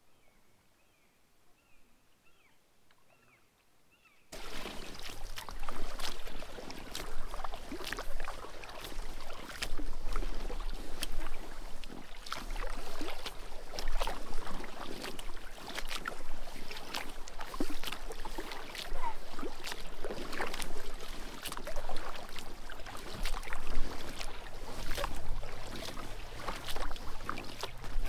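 Kayak paddling: water splashing and dripping off the paddle blades and lapping against the hull, starting suddenly about four seconds in and rising and falling with the strokes. Before it, faint repeated bird chirps.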